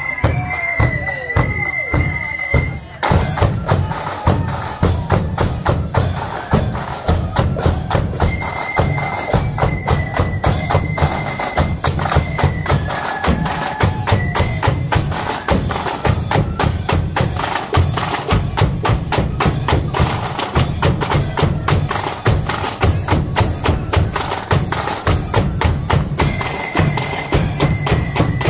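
Marching band's drum corps of bass drums, snare drums and cymbals beating a steady march rhythm. A few short, high held notes sound over the drums near the start and again in patches later.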